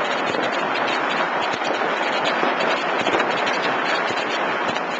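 Fireworks going off close at hand in a dense, unbroken crackle of countless pops and bangs at once, with no let-up.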